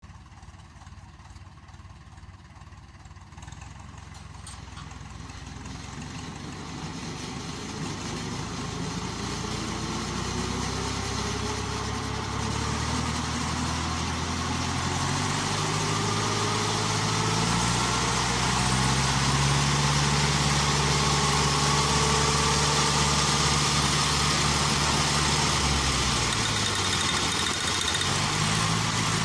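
Ursus C-360 tractor's four-cylinder diesel engine running while standing still, growing steadily louder as it is revved up. A whine climbs slowly in pitch over several seconds as the rotary disc mower on the rear spins up. The engine note dips briefly near the end, then picks up again.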